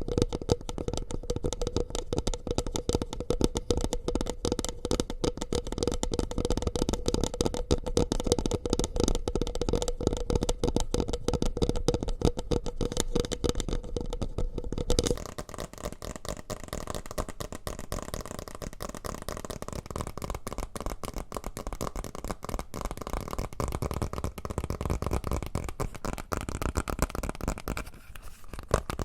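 ASMR trigger sounds close to the microphone, made with a goose-feather stick: very rapid, dense tapping for about the first half, then an abrupt switch to a softer, steadier rustling texture.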